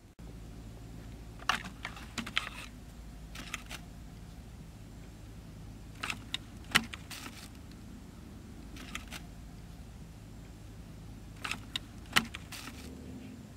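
Light clicks, knocks and crinkles of plastic drink bottles and a plastic bag being handled, in several short clusters, over a steady low hum.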